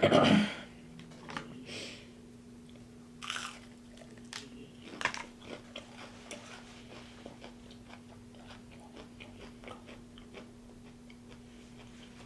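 Close-miked eating: a loud crunchy bite at the start, then chewing with a few smaller crunches and scattered mouth clicks, over a faint steady hum.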